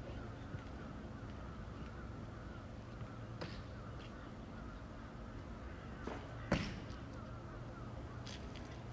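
Birds calling over and over in the background above a steady low hum, with one sharp knock about six and a half seconds in.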